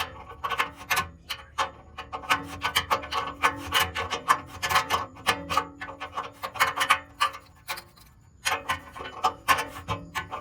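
Ratchet wrench clicking in quick, irregular runs while working a bolt loose, with short pauses, about a second and a half in and again around eight seconds.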